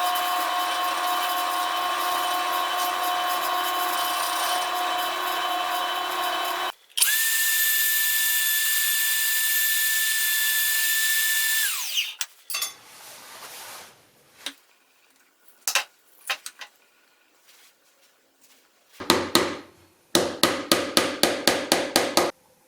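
A power tool runs steadily for several seconds, stops, and a second, higher-pitched power tool runs for about five seconds before winding down. Scattered knocks follow, then near the end a quick run of regular strokes, about six a second.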